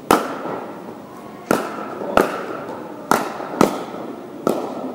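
A pickleball rally: paddles hitting the hard plastic ball, about six sharp pops at uneven intervals of half a second to a second and a half, each ringing briefly in the large hall.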